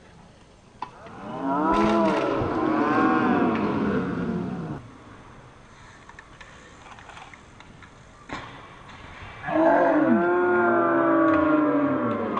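A crowd of spectators cheering with long drawn-out shouts, many voices rising and falling together. There are two bursts of cheering: the first begins about a second and a half in and lasts about three seconds, and the second begins about three seconds before the end and carries on to the end.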